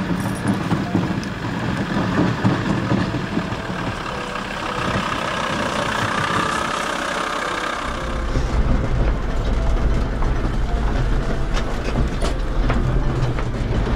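An engine running steadily with a low rumble that grows heavier about halfway through, with a few sharp clicks after that.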